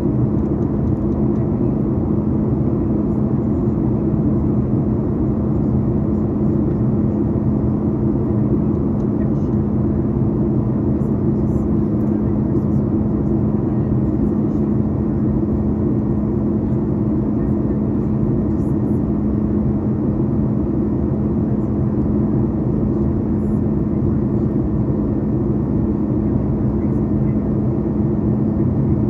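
Steady cabin noise of a Boeing 737 MAX 8 on approach: the drone of its CFM LEAP-1B engines and the rush of airflow, with a steady low hum.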